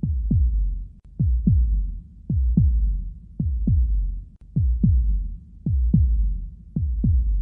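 Heartbeat sound effect: a slow, steady lub-dub, a pair of low thumps about once a second. Each thump drops in pitch, over a constant low rumble.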